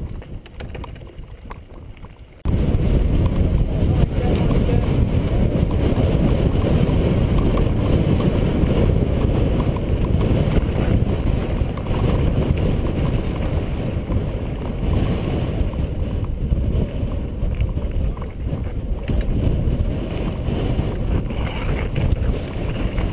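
Mountain bike rattling and jolting down a loose rocky trail, with heavy wind buffeting on the handlebar-mounted action camera's microphone. The noise jumps suddenly louder about two and a half seconds in.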